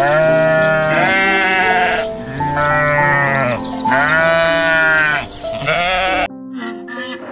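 Goats bleating: three long, wavering bleats over background music, which cuts off about six seconds in.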